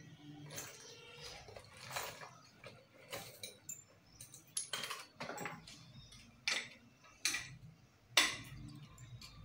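Scattered metallic clinks and knocks, about seven over several seconds at irregular spacing, from tools and a satellite-dish wall bracket being handled during mounting. The sharpest knock comes near the end.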